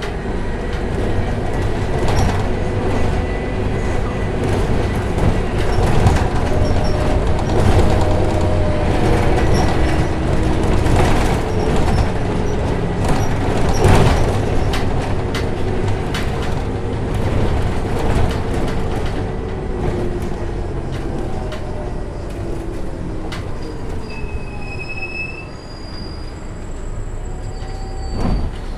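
Inside a city bus on the move: the engine and road make a steady rumble, and the drivetrain's whine rises and falls in pitch as it speeds up and slows down. Frequent rattles and knocks come from the cabin. The sound gets quieter over the last part, with a few short high squeaks near the end.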